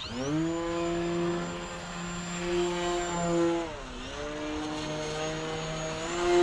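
Electric motor and propeller of a Flex Innovations Mamba 10 RC aerobatic plane in flight, with a thin high motor whine above the propeller's tone. The pitch rises sharply as the throttle comes up at the start, holds steady, dips briefly about four seconds in, then climbs again near the end.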